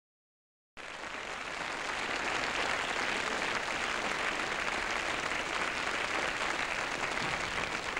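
Studio audience applauding, starting abruptly just under a second in and holding steady.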